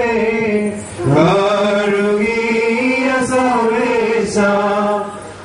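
Male liturgical chant sung in long held notes. The voice drops out briefly about a second in, comes back on a rising note, and fades again near the end.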